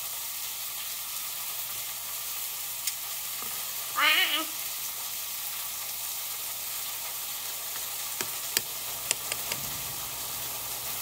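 Egg slicer being pressed through carrots, giving a quick run of sharp clicks and taps near the end over a steady hiss. About four seconds in there is one short sliding voice-like sound.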